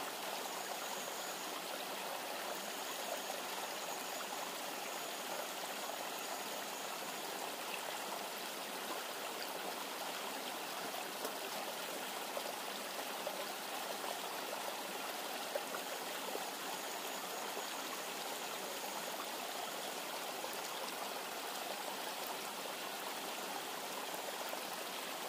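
Steady rush of a river or stream flowing, an even unbroken water noise.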